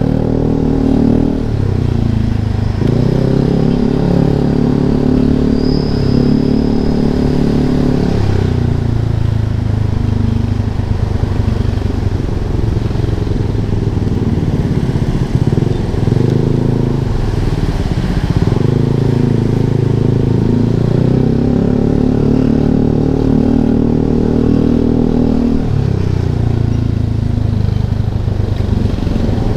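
Yamaha Lexi scooter's single-cylinder engine running loud through an Arrow aftermarket exhaust, its note dropping and climbing again several times as the throttle is closed and reopened.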